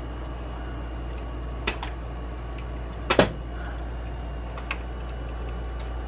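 A few small clicks and taps from handling a microwave's plastic control panel and its wiring plugs, the loudest a sharp double click about three seconds in, over a steady low hum.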